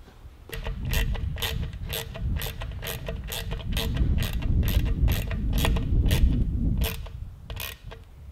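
Ratchet wrench clicking in quick, uneven strokes, about two to three clicks a second, as the bolts holding propeller counterbalance weights on the spinner bulkhead are tightened, over a low rumble. The clicking starts about half a second in and stops shortly before the end.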